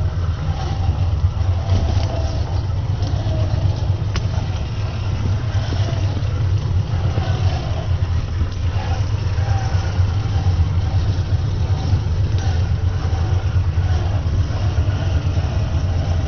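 Traxxas TRX-4 electric RC crawler driving: a steady low drone from its motor and drivetrain, with a few faint clicks.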